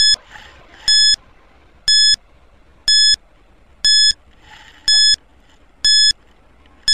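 Electronic countdown timer beeping once a second: short, high, identical beeps, about eight in all, marking off the final seconds of the countdown.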